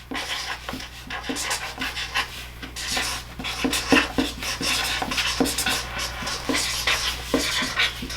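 Recorded sound effect of glass breaking played back, a run of sharp crashes and tinkling shards scattered unevenly.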